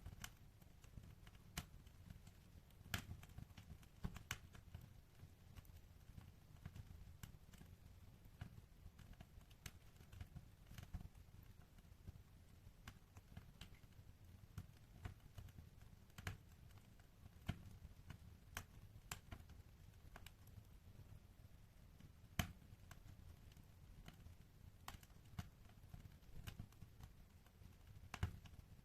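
Wood fire in a fireplace crackling: irregular sharp pops and snaps, a few of them louder, the loudest about three-quarters of the way through, over a faint low rumble.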